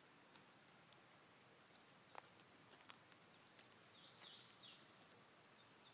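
Near silence outdoors, broken by a few faint clicks and, about four seconds in, a short high bird call lasting under a second.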